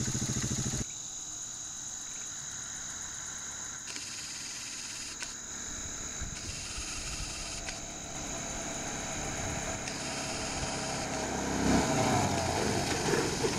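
1991 Yamaha Moto-4 250 ATV's single-cylinder four-stroke engine. It is close and idling for under a second, then after a cut it is faint and distant, growing louder as the quad approaches from about ten seconds in. A louder burst of noise comes about twelve seconds in as it brakes to a stop. Crickets or other insects trill steadily and high-pitched throughout.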